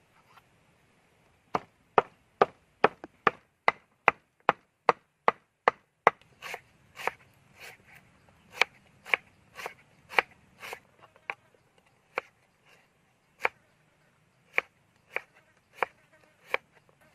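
Kitchen knife chopping on a thick round wooden chopping board: sharp knocks starting about a second and a half in, quick and even at first, about two and a half a second, then slower and uneven as the blade slices lemongrass stalks into rings.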